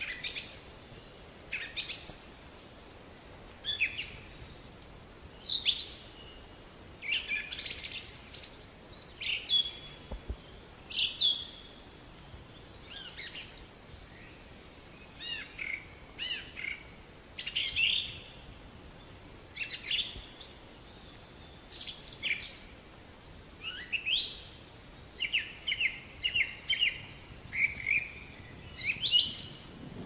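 Small songbirds chirping and singing, with short high calls and trills coming every second or two, some falling in pitch. Near the end there is a quick run of about five notes.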